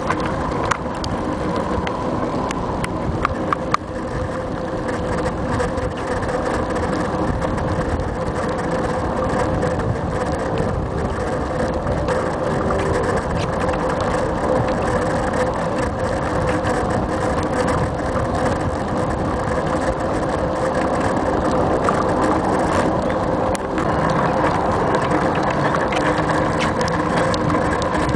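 Steady rushing noise of a bicycle being ridden on a paved path, picked up by a bike-mounted camera: wind over the microphone and tyre and frame rumble, with a few sharp rattling clicks around three to four seconds in.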